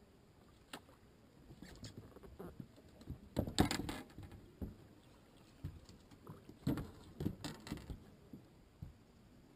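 Scattered knocks, clicks and clatter of a person getting up and moving about a fishing boat's deck while handling gear. The knocks bunch most densely about three and a half seconds in and again around seven seconds.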